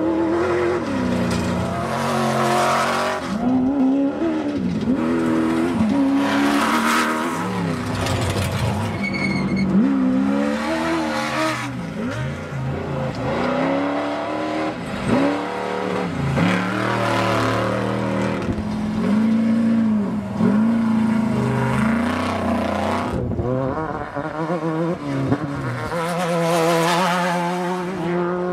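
Off-road desert race vehicles' engines revving up and down again and again, pitch climbing and dropping every second or two as they accelerate and lift off over rough ground.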